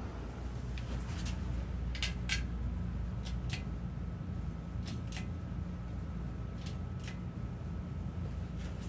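52-inch NuTone Elegance ceiling fan with a Top Union K55-style motor running: a steady low hum with a faint whine, and light clicks coming in pairs every second or two.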